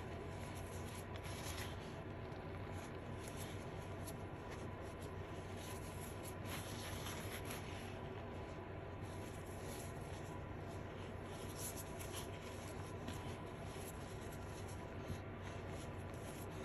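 Fingers rubbing and crumbling blue reformed chalk powder and chunks: a continuous soft scratching, with many small crunchy ticks.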